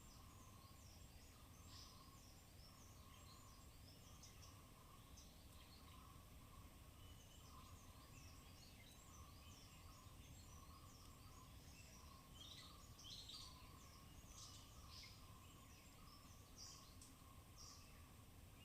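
Faint forest ambience: a low call repeats about once a second, with many short high chirps from small animals scattered over it, busiest in the second half. A low rumble sits underneath.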